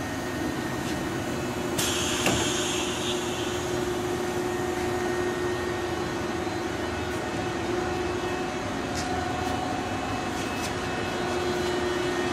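Steady machine hum from a running Citizen M32 Swiss-type CNC lathe and its FMB bar feed during a cycle. About two seconds in there is a short hiss with a click.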